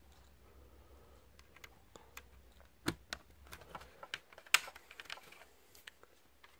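Light clicks and taps of an HP Pavilion G6 laptop's plastic housing and parts being handled and fitted during reassembly. The clicks are scattered, bunch together in the middle, and the sharpest comes about four and a half seconds in.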